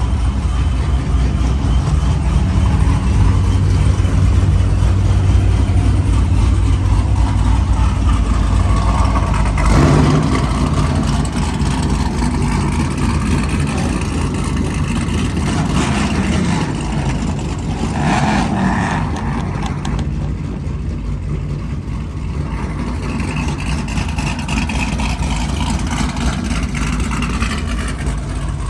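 V8 car engine and exhaust running with a steady deep rumble, rising briefly in level about ten seconds in.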